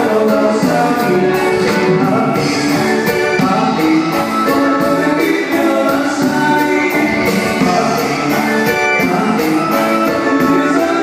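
Live grupera band playing: keyboard, guitar and drum kit, with a steady cymbal beat and singing.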